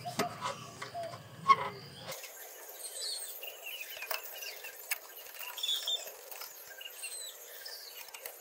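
A few hard plastic knocks and clicks as the lower half of an air cleaner box is set into place, loudest in the first two seconds. After that, small birds chirp faintly among scattered light taps.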